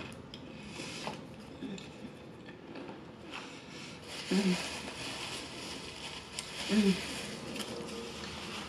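A paper napkin rustling and crumpling as hands are wiped, with a few light clicks. Two short hums from the eater, about four seconds in and again about two seconds later.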